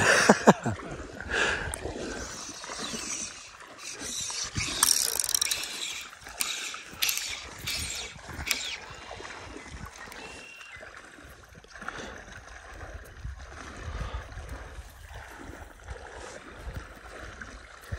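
Fly reel's click-and-pawl drag ratcheting in short runs of clicks as line is drawn through it, densest about five to nine seconds in.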